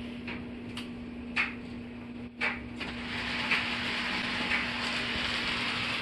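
Model train running on its layout track: a steady hum, a few sharp clicks in the first two and a half seconds, then the rushing rumble of the train rolling that grows a little and holds steady.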